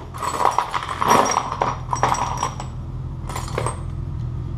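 Loose steel bolts, nuts and sockets clattering and clinking as hands rummage through a pile of hardware, a dense run of small metallic clicks that stops, then a short burst again near the end. A low steady hum runs underneath.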